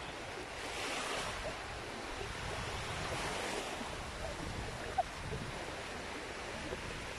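Small sea waves breaking and washing up over the sand at the water's edge, swelling about a second in and again around three seconds in. Wind rumbles on the microphone underneath.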